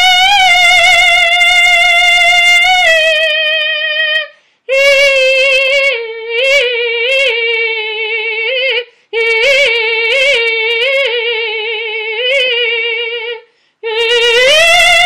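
A woman singing solo, unaccompanied, in long held notes with vibrato. A high note is held for about four seconds, then lower notes decorated with little upward turns, broken by three short breaths, and the voice rises back to a higher note near the end.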